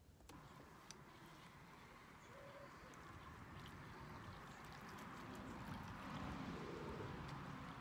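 Faint, steady outdoor noise at the water's edge, slowly getting a little louder, with a few soft ticks.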